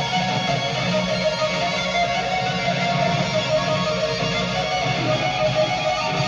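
Live band playing, with an electric guitar to the fore.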